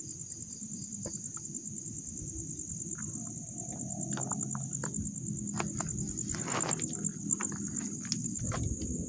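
A steady chorus of night insects keeps up a high, fast-pulsing trill. Under it run low rustling and a scattered series of sharp clicks.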